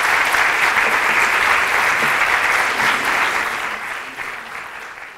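Audience applauding. The applause fades away over the last second or so.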